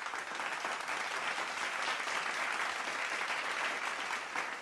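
An audience applauding, building up and then easing off near the end.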